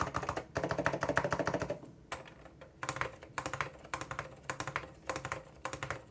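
Typing on an Apple Extended Keyboard M0115 with orange Alps switches and lubed stabilizers: a fast run of keystrokes for nearly two seconds, then slower, separate key presses.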